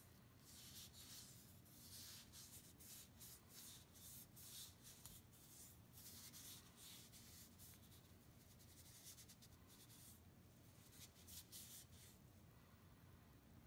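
Cloth rag rubbing over a hand-carved butternut wood bust, wiping on finish in runs of quick, faint scratchy strokes that ease off in the middle and pick up again near the end.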